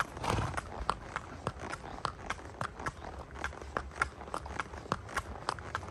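Horse's hooves clip-clopping at a steady walk, a regular beat of about three to four hoof strikes a second.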